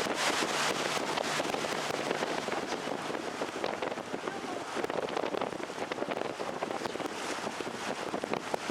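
Open canal tour boat under way: a steady low motor and water noise, with wind crackling on the microphone.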